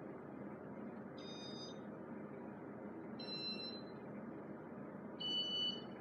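Casablanca ceiling fan's IntelliTouch receiver sounding three short electronic beeps about two seconds apart, each at a different pitch, as it steps through its demo mode; the last beep is the loudest. Underneath is a steady hum of moving air.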